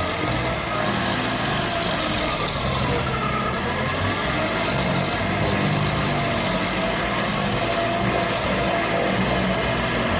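Machine engine running steadily, its pitch slowly rising and falling.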